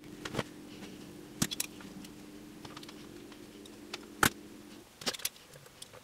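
Handling noise from a curling iron and hair clips: a handful of sharp clicks and taps, scattered irregularly, over a faint steady low hum that stops near the end.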